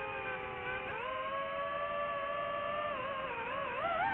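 High-pitched whine of a radio-controlled aircraft's electric motor and propeller. It climbs in pitch about a second in as the throttle goes up, holds steady, then drops and wavers near the end.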